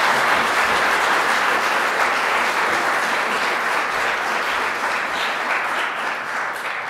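Audience applauding steadily, just starting to die away near the end.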